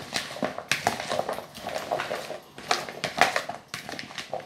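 Oil-coated chopped vegetables being stirred and tossed with a metal spoon in a plastic bowl: irregular scrapes and clicks of the spoon and vegetable pieces against the bowl.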